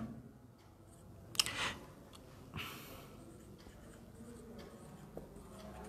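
Faint writing on a board: a few short strokes and taps, the loudest about a second and a half in.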